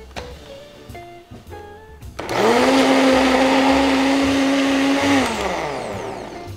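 Countertop blender switched on about two seconds in, its motor spinning up quickly to a steady high-pitched whir as it purees chopped pear and onion. After about three seconds it is switched off and winds down with a falling pitch.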